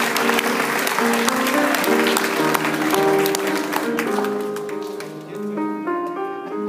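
A grand piano plays a slow melody while audience applause carries on over it and dies away about four seconds in, leaving the piano notes alone.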